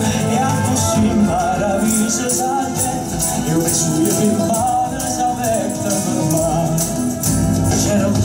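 A song playing loudly: a singing voice over a band with tambourine-like hand percussion keeping a steady beat.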